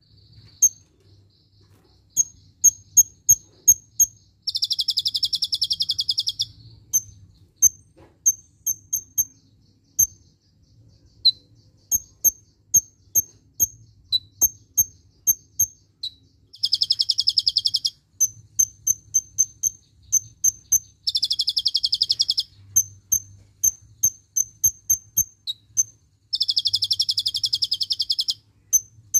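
A caged male black sunbird (kolibri ninja) singing: strings of sharp, high chirps, several a second, broken four times by a rapid trill of about two seconds.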